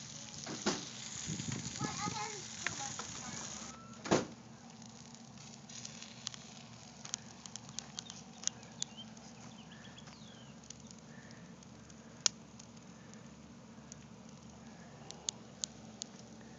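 Pork loin sizzling on a charcoal kettle grill, with scattered sharp pops and crackles from the meat and hot coals. The hiss is louder for the first four seconds, and there is a single thump about four seconds in.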